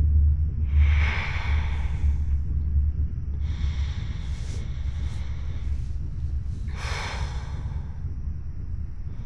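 A woman breathing heavily, three long breaths about three seconds apart, over a steady low rumbling drone.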